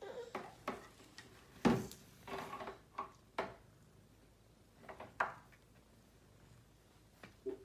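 Plastic toy doll stroller rattling and knocking as it is pushed and brought to a stop: a few light, scattered clicks and knocks, the loudest about one and a half seconds in.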